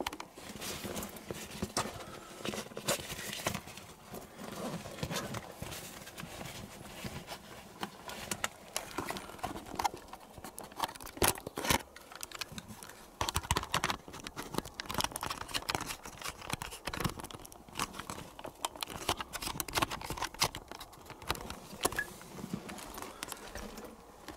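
Irregular footsteps, scuffs and knocks on rock.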